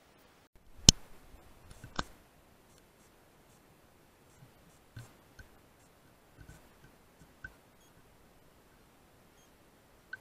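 Handling clicks from the rifle and scope: one sharp click about a second in, another about two seconds in, then faint scattered ticks and taps.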